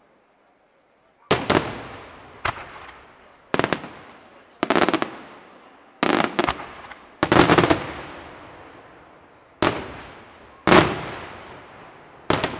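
Aerial firework shells bursting: a string of about nine loud bangs, roughly one a second after a short hush at the start. Each bang fades away in an echo, and a few come as quick double or multiple reports.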